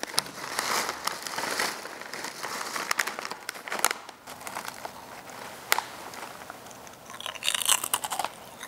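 Plastic snack bag crinkling as it is handled and a hand reaches into it, with crisp crunching of chips being bitten and chewed.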